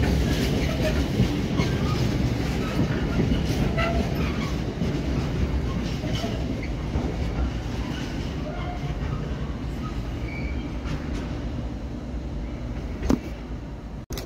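Container wagons of a freight train rolling past, a steady rumble with many wheel clicks on the rails, slowly getting quieter as the end of the train goes by; one sharper click near the end.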